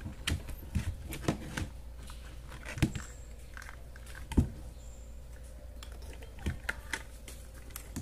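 Light clicks and knocks of the metal parts of an electric fan motor being handled and fitted together by hand: the rotor on its shaft and the end housing going onto the stator. The sharpest knock comes about four and a half seconds in.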